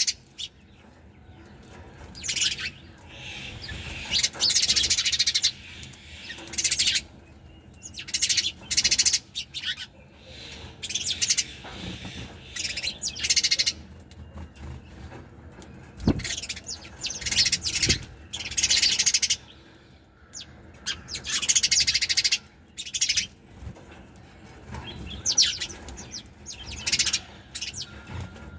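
Sparrows chirping in repeated bouts of rapid, high chirps, each bout a second or two long, with short lulls between.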